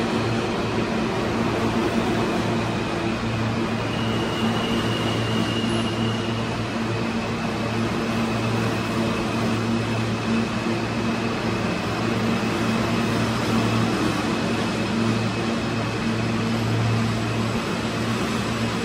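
New York City Subway E train (R160 cars) running along the station platform and slowing to a stop: a steady rumble of wheels on rail with a low, even hum, and a brief high tone a few seconds in.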